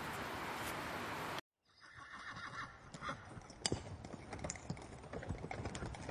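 A steady hiss that cuts off sharply about a second and a half in, then horses neighing over scattered sharp clicks and knocks.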